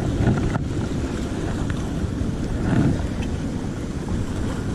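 Wind buffeting the microphone over the steady wash of sea surf; the noise swells briefly about three seconds in.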